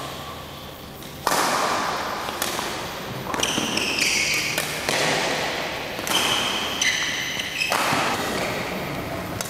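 Badminton rally: rackets striking the shuttlecock, with shoes squeaking sharply on the synthetic court mat as the players move and lunge.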